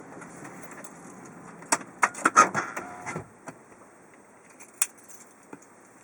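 Steady car running noise with a quick cluster of clicks and rattles about two seconds in; the steady noise cuts off suddenly about three seconds in, leaving a few scattered clicks.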